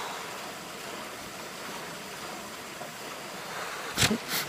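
Swimming-pool waterfall feature rushing steadily, a constant splashing hiss, loud enough to keep someone from napping. Near the end two short, sharp bursts of noise stand out above it.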